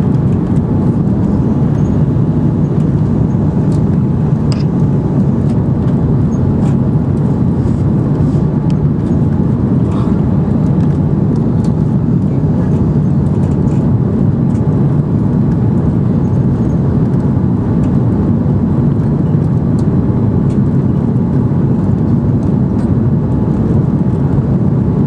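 Steady, loud low rumble of cabin noise inside an Airbus A330 airliner, with a few faint ticks scattered through it.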